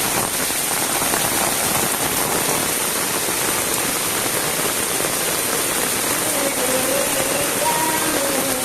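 Heavy rain falling steadily as a continuous, even hiss.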